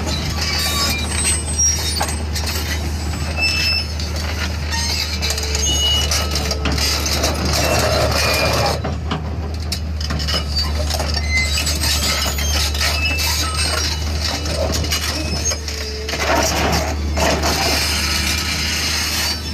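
Heavy diesel engine of an excavator running steadily with a low hum, mixed with scattered metallic clinks and clanks.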